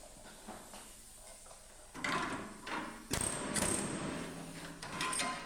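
Pneumatic air hammer chiseling through the sheet metal of the spare tire well, starting about two seconds in and running in noisy bursts. It is used aggressively to break out the old metal.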